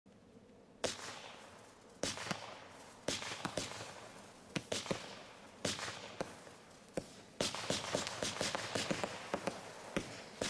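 A low-noise 'silent' 25 mm consumer firework battery (cake) firing shot after shot, each a sharp pop trailed by a fizzing hiss. The first shot comes about a second in, the next ones about a second apart, then from about seven seconds in they crowd into a quick, near-continuous string.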